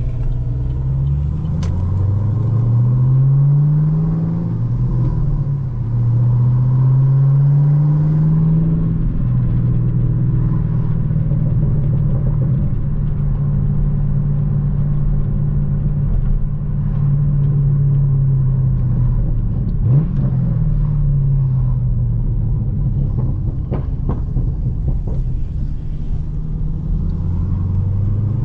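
Car engine pulling up through the gears: its pitch rises, drops at a shift, and rises again, then it cruises steadily with a low rumble and small changes in speed. There is a short click about 20 seconds in.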